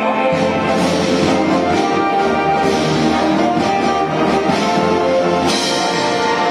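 Orchestral music with brass instruments playing sustained notes.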